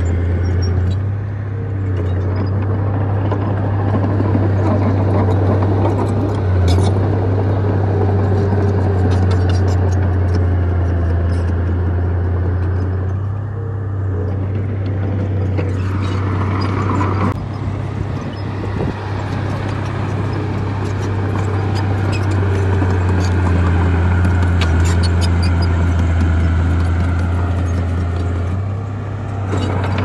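Komatsu crawler bulldozer's diesel engine running steadily under load as the blade pushes dirt and rock. The low drone eases for a few seconds about halfway through and again near the end, with scattered clanks and scrapes from the tracks and rocks.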